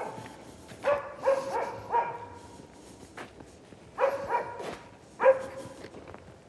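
A dog barking: short, sharp barks, a quick run of about four from about a second in, then about three more around four to five seconds in.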